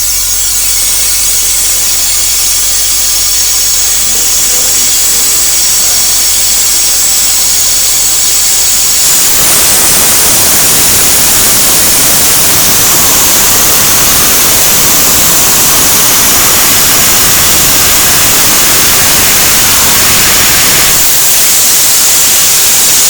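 Compressor running loudly with a steady, hissing mechanical noise. It grows fuller and harsher about nine seconds in and eases slightly near the end. The unit is sparking, which the owner takes as a fault: it needs to be exchanged.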